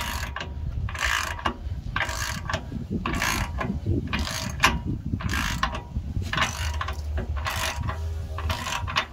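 Hand ratchet clicking through repeated strokes, roughly one or two a second, as it turns the long threaded rod of a bushing press tool. The tool is pressing a Meritor suspension pivot bushing into its bore, and the rod still turns without much effort.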